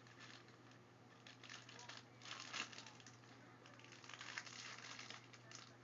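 Faint crinkling and rustling of packaging being handled, over a steady low electrical hum.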